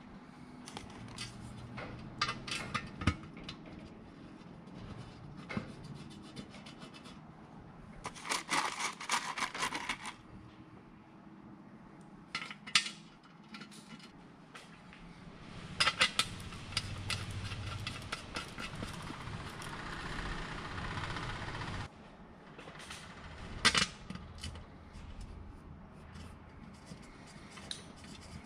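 Small metal bolts and washers clinking and scraping as they are handled and started by hand into an engine's top cover, with scattered sharp clicks and a few short bursts of clatter.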